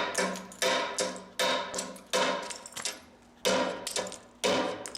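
Hammer blows on a steel pitching tool set against the edge of a limestone slab, about six sharp ringing strikes roughly a second apart with a longer pause midway, chipping off the edge to give it a rock-faced, natural broken look.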